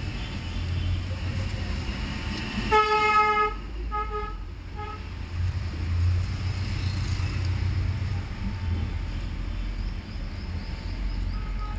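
Vehicle horn: one toot of under a second, then two short toots, over a low steady background rumble.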